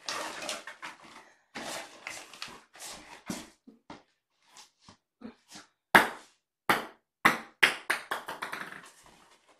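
Rustling and scraping as a fabric cat-toy play mat is handled and lifted off a laminate floor, followed in the second half by a run of sharp, loud knocks.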